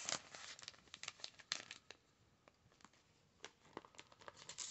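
Faint rustling and crinkling of a plastic comic-book bag being handled, with scattered small clicks and crackles that ease off for a moment in the middle.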